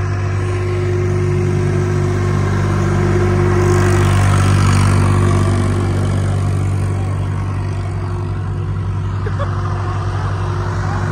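Swaraj tractor's diesel engine working hard under load while its rear wheel spins and digs into loose sand. The engine note swells to its loudest a few seconds in, then eases back to a steady run.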